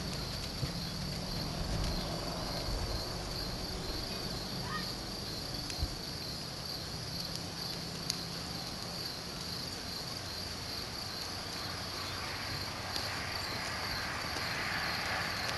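Crickets chirping steadily in a high, pulsing band over outdoor background hiss, with a few faint isolated knocks.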